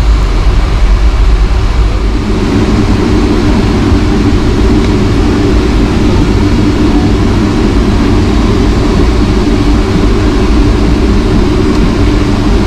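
Boeing 757-200 jet engines heard from inside the passenger cabin: a loud, steady rumble, with a steady droning hum joining about two seconds in.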